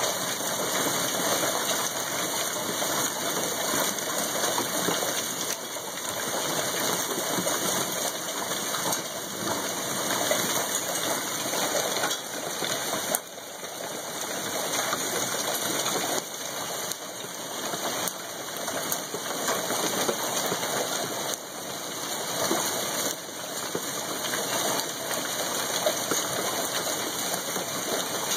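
Hail and heavy rain pouring down steadily in a thunderstorm: a dense hiss packed with countless small hits, with a short lull about halfway.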